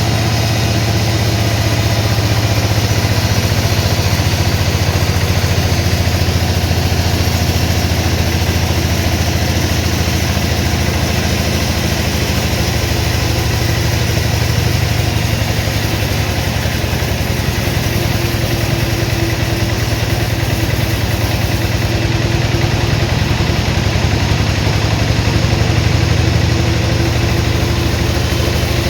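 Sawmill machinery's engine running steadily at a constant speed, with a faint higher tone joining in about two-thirds of the way through.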